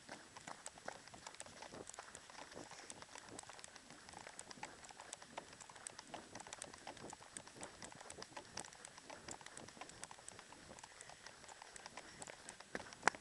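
A runner's footsteps, a quick run of taps and scuffs, mixed with rubbing and knocking from the camera swinging in the running hand. There is one sharper click just before the end.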